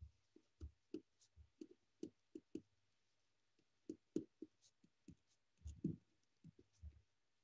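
A pen writing on paper: faint, irregular scratches and taps of the pen strokes, with a pause of about a second and a half in the middle.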